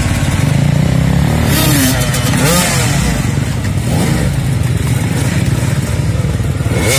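Several enduro dirt bike engines running at once and revving hard, pitch rising and falling again and again as the bikes are worked up and over logs in mud.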